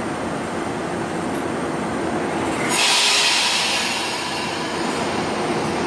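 NJ Transit Arrow III electric multiple unit rolling slowly past along the platform. About three seconds in, a sudden loud hiss from the train's brakes rises over the rumble and fades within a second or two, with faint high wheel squeal near the end.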